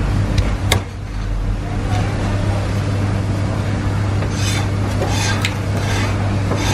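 A cleaver knocks once on a wooden chopping block about a second in, over a steady low hum. A few seconds later come several short scraping, rubbing sounds as a foam takeaway box of sliced char siu is handled.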